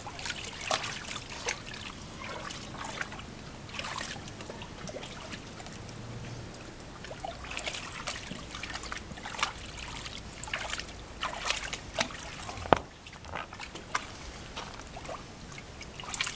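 Rottweiler pawing and stepping in the water of a small inflatable paddling pool: irregular splashes and sloshes. One sharp click about three-quarters of the way through is the loudest sound.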